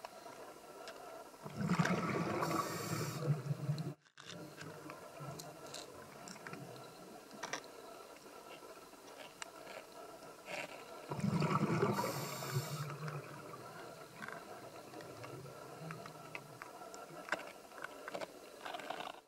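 Underwater ambience with scattered faint clicks, broken twice, about two seconds in and again about eleven seconds in, by a couple of seconds of bubbling rumble with a brief hiss, typical of a scuba diver's regulator breath.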